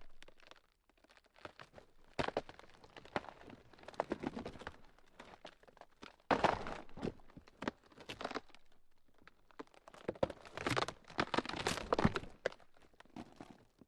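Ground cracking: irregular clusters of sharp cracks and crackles, coming in several louder bursts with quieter stretches between.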